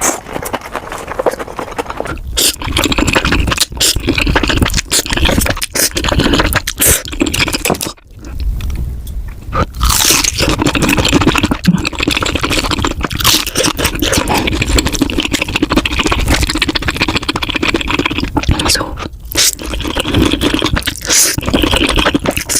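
Close-miked eating sounds of a mukbang: chewing and mouth noises with many sharp clicks, dipping briefly about eight seconds in.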